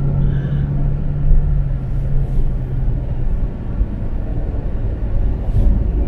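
Car driving at road speed, heard from inside the cabin: steady low engine and tyre rumble, with a low hum that drops out about three seconds in.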